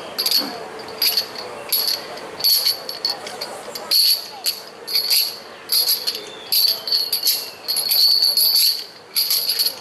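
Metal training rings worn in a kung fu form jangling in short, irregular bursts, one or two a second, as the performer moves and strikes, with a longer jangle about eight seconds in.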